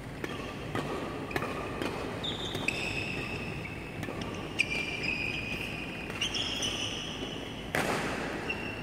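Badminton rally: rackets strike the shuttlecock again and again in quick exchanges, while court shoes squeak on the court floor. The loudest hit comes near the end.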